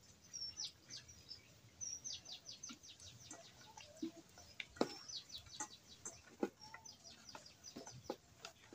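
Birds calling faintly in runs of quick, high, repeated notes, several runs in a row. Scattered soft knocks sound among them.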